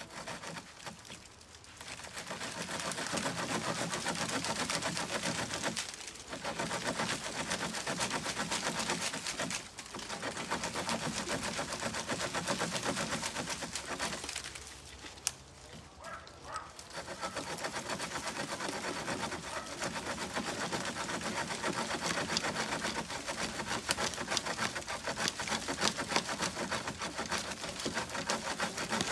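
A sycamore branch being sawn through with the sawback spine of a tracker knife, in quick continuous strokes. The sawing comes in four spells, with short pauses about 6, 10 and 15 seconds in.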